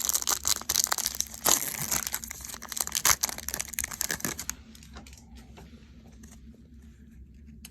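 Foil trading-card pack wrapper being torn open and crinkled, a dense crackle for about four and a half seconds before it dies away.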